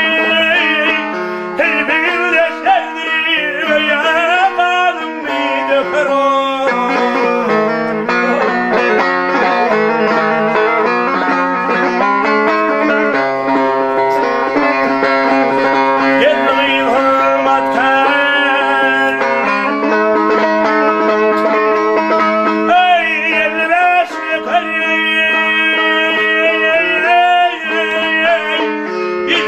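A man singing a Turkmen bagşy folk song, accompanying himself on a strummed dutar, a two-stringed long-necked lute.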